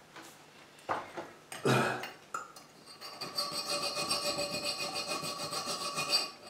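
Small hand file rasping back and forth on a thin aluminium toy-car windscreen clamped in a bench vise, filing out its window openings. A couple of short knocks come first. The filing starts about three seconds in, with a steady ringing tone over the rasp.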